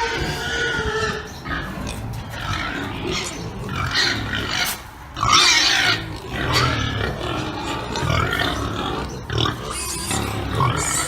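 Several pigs calling, their calls overlapping; the loudest is a shrill squeal about five seconds in.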